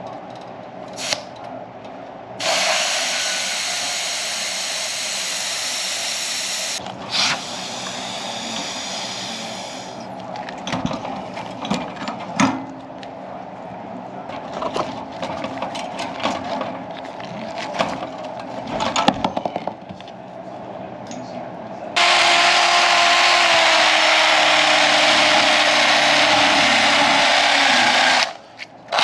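Pressure in the new evaporator coil's copper line hissing out as it is released, in two bursts a few seconds in, followed by scattered clicks and knocks of tool work on the copper tubing. From about 22 seconds a cordless drill runs steadily with a wire cup brush, stopping briefly just before the end.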